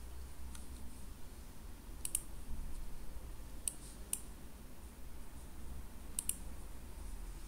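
Computer mouse button clicking: a handful of sharp clicks, some in quick pairs, over a low steady hum.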